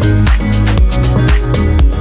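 Electronic dance-style background music with a steady beat and a pulsing bass.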